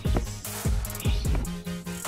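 Electronic background music with a kick drum and bass line.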